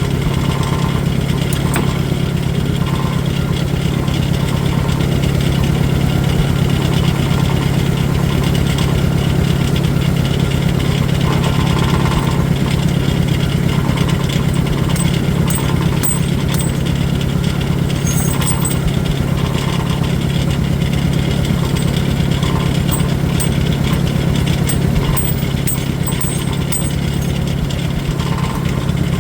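Farmall 400 tractor engine running steadily at idle, with a few faint light clicks in the latter half.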